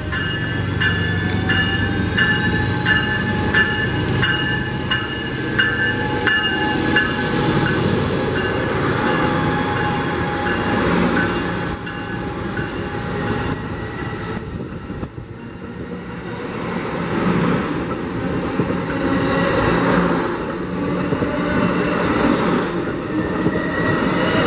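Siemens SC-44 Charger diesel locomotive of an Amtrak Pacific Surfliner pulling into the station, its bell ringing in steady strokes and its engine running as it passes close by. It is followed by the bi-level passenger cars rolling past with wheel clatter and high squealing.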